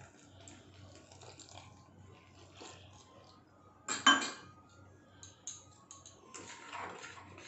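Water trickling faintly from a steel tumbler into a steel bowl of gram flour and rice flour. About four seconds in the steel tumbler is set down with one loud metallic clink. A few light clicks follow, then a wire whisk scrapes and stirs in the steel bowl as the batter is mixed.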